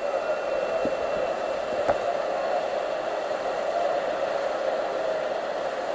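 Whitewater rapids rushing in a steady, unbroken roar.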